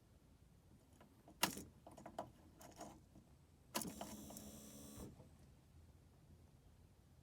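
Tools and parts being handled: a sharp metallic click, a few lighter knocks, then a rasping metallic scrape of about a second.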